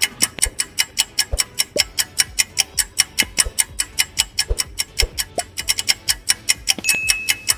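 Ticking clock sound effect counting down a timer: fast, even ticks at about four to five a second. A thin high tone joins briefly near the end.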